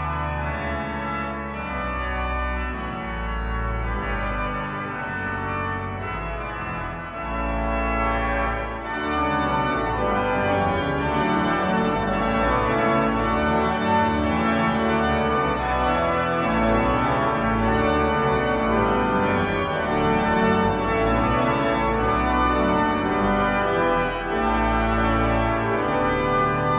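Pipe organ playing sustained chords over deep pedal bass notes, growing louder and fuller about nine seconds in.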